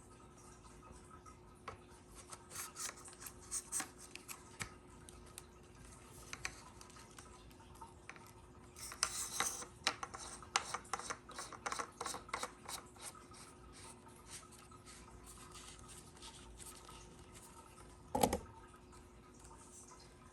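Hands handling and unpacking the tool's parts and packaging: intermittent scraping and rubbing with small clicks, busiest in the middle, and one sharp thump near the end as something is set down or knocked.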